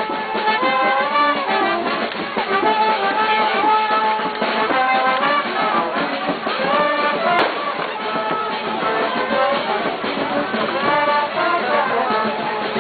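Live music from a band walking in a street procession, with acoustic guitars among the instruments, playing a repeating tune.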